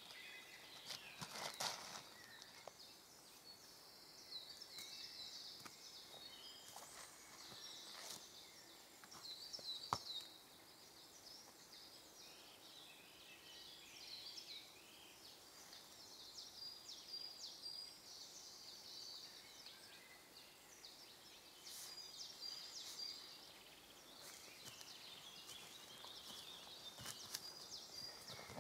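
Faint woodland birdsong: many short, high chirps and trills, some in repeated three-note phrases. A few sharp clicks sound over it, the loudest about ten seconds in.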